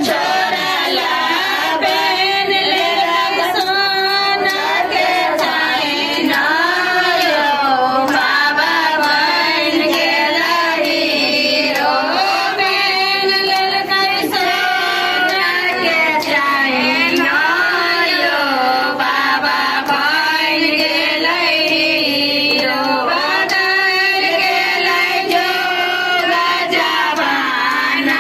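A group of women singing a Shiva devotional folk song (Shiv geet) together, without a break.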